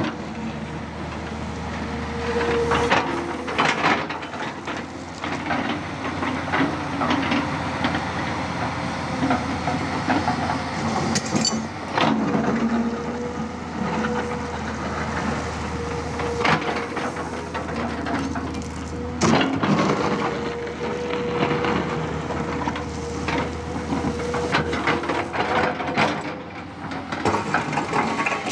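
Tata Hitachi 200 Super hydraulic excavator at work: its diesel engine runs steadily under a whine that comes and goes, with repeated knocks and crunches, loudest about 3, 4, 12 and 19 seconds in.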